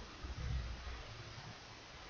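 Faint steady hiss of an open recording microphone, with a brief low rumble about half a second in.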